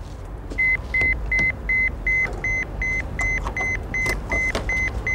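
An electronic beeper gives short high beeps, about three a second, starting about half a second in, over a low engine rumble, with a few clicks from a door latch.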